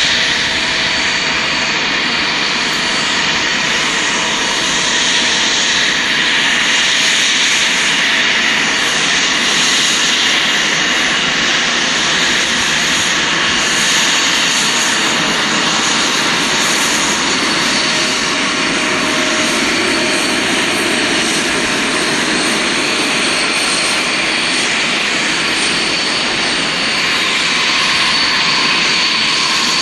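Loud, steady machine noise, a continuous hiss-like drone with faint high whining tones, unchanging throughout.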